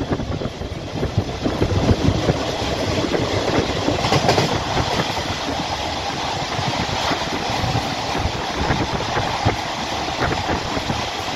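Blue-skin diesel-hauled passenger train running along the line, heard from inside the carriage: a steady rumble of the coach rolling, with irregular clacks of the wheels over the rails.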